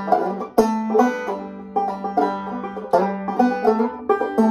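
Gold Tone five-string banjo played clawhammer style in open G tuning (gDGBD): a run of crisp picked melody notes and brushed strums over a low note that keeps ringing underneath.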